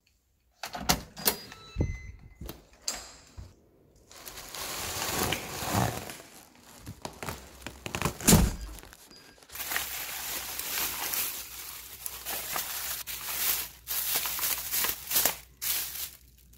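A few knocks and clicks of a door, then a plastic shopping bag crinkling and rustling for most of the rest as packs of meat are taken out of it.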